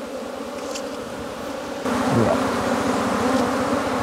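A swarm of wild honeybees buzzing in flight around their nest as its honeycomb is pulled out. It is a steady drone that gets louder about two seconds in, with one bee briefly passing close by just after.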